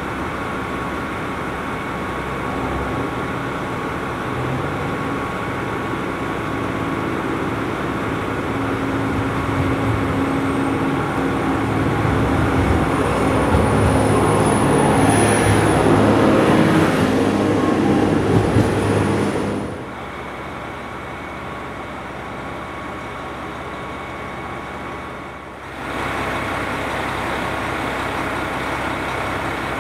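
JR Hokkaido H100 diesel-electric railcar's engine running and growing louder, with a high whine that slowly rises in pitch. About two-thirds of the way in the sound cuts abruptly to a steadier, quieter diesel engine hum.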